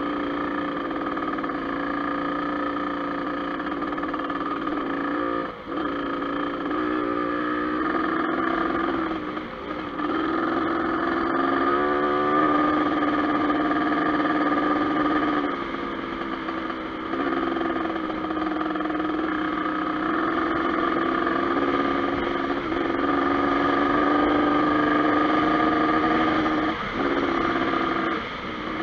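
Dirt bike engine running under way, its note rising and falling with the throttle, with brief drops off the throttle a few times.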